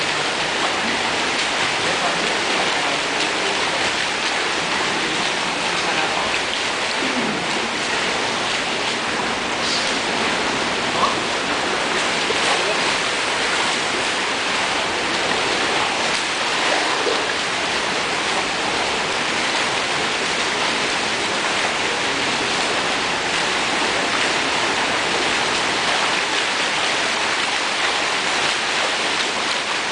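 Steady splashing and churning water from front-crawl swimming in an indoor pool, a continuous wash of noise, with faint distant voices and a single brief knock about eleven seconds in.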